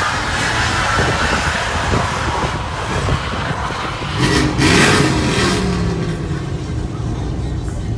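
Pickup truck's engine revving hard as it spins its rear tyres in a burnout, with the loudest burst of engine and tyre noise about four and a half seconds in.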